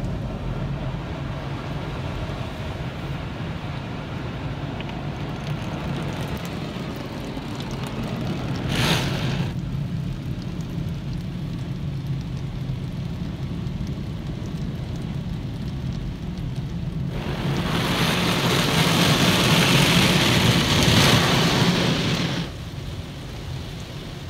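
Automatic car wash machine heard from inside the car: its motors hum steadily while the rotating brushes and water work over the windscreen and body. A short rushing surge comes about nine seconds in, and near the end a much louder rush of spray washes over the car for about five seconds before it drops back.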